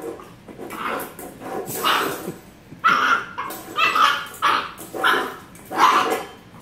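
Puppy barking in a string of short, high-pitched barks, roughly one a second.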